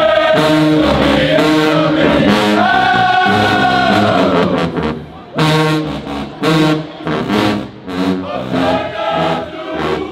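Marching band brass section, with sousaphones, trumpets and drums, playing a fanfare. It holds one long, loud chord for the first four or five seconds, breaks off briefly, then plays a string of short, punchy chords, each struck together with a drum hit.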